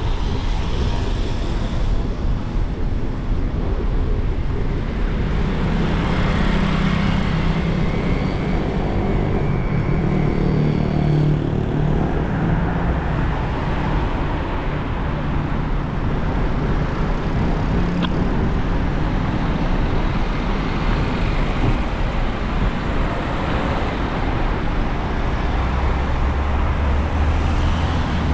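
Road traffic on rain-wet city streets: a steady hiss of passing vehicles, with an engine hum that rises through the middle and a deeper engine hum near the end.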